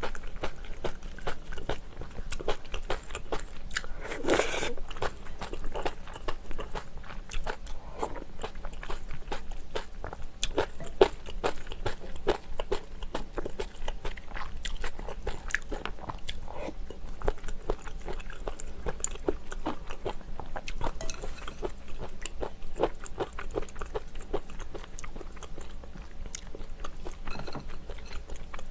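Close-miked eating sounds: steady wet chewing and crunching of kimchi stew with rice, with one louder noisy burst about four seconds in.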